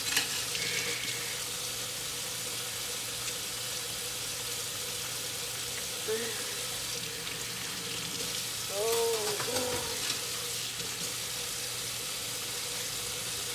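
Water running steadily from a kitchen faucet into the sink during dish washing.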